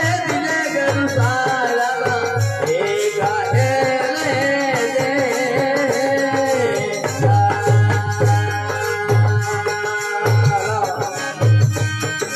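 Marwari folk bhajan: a man singing over a rhythmic barrel-drum beat, with wooden kartal clappers and harmonium. The singing stops about seven seconds in, leaving the drum, clappers and harmonium playing.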